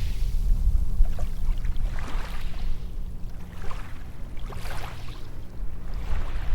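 Small waves washing onto a sandy beach: three soft swells of surf hiss over a low, steady rumble.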